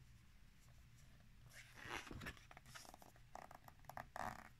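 Faint paper rustling and sliding as a picture book's page is turned, in short bursts about two seconds in and again near the end.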